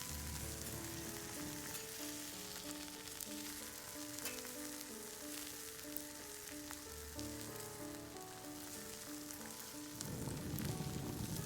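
Duck meat sizzling as it grills over charcoal, with a light background melody over it. The melody stops about ten seconds in, and then the sizzling comes up louder.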